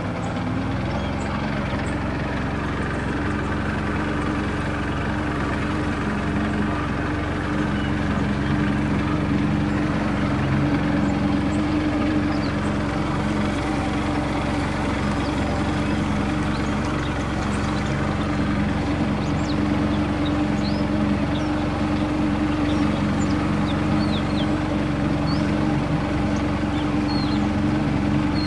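A motorboat's engine running steadily at an even pitch as the boat cruises, with short high chirps scattered over it.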